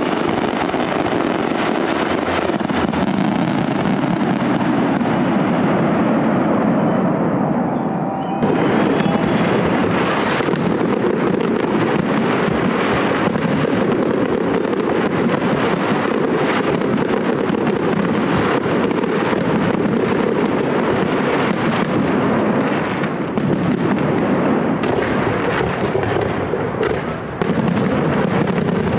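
Fireworks display: a dense, continuous barrage of shell bursts and crackling. The sound changes abruptly about eight seconds in.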